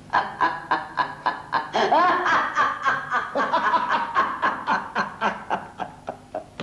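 Laughter: a long run of short laughing bursts, about four or five a second, easing off near the end.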